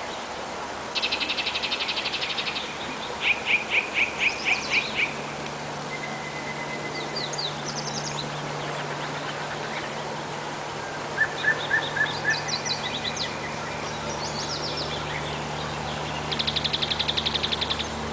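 Several songbirds singing: a fast buzzy trill about a second in and again near the end, and runs of loud, clear notes at about four to five a second, with scattered chirps in between. A steady hiss and a faint low hum lie underneath.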